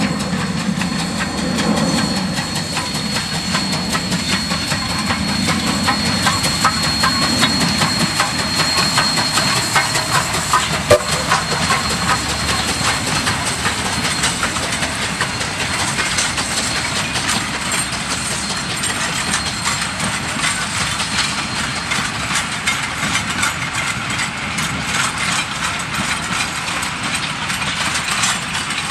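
DD17 class steam tank locomotive working a passenger train past at close range: the steady running noise of the engine and the clatter of wheels over rail joints as the tank wagon and carriages roll by, with one sharp knock about eleven seconds in.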